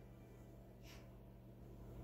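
Near silence: room tone with a steady low hum and one brief faint hiss about a second in.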